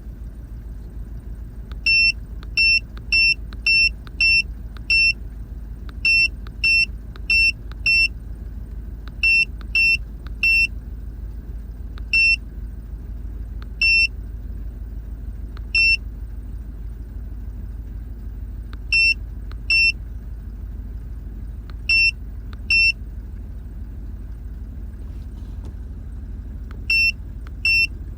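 2003 GMC Yukon XL Denali's 6.0-litre V8 idling with a steady low rumble, in a truck being checked for a misfire. Short high electronic beeps sound over it, sometimes singly and sometimes in quick runs of up to six at about two a second.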